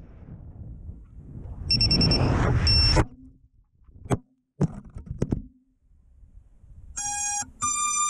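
An FPV racing quad's motors and rushing air, then a few sharp knocks as it tumbles and crashes. Near the end come two short electronic beeps, the second higher than the first.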